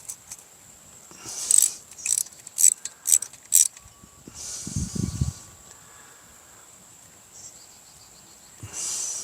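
Hand tools working on a small weed whacker engine during disassembly: a run of about five sharp metallic clicks over a couple of seconds, then a brief low knock about five seconds in.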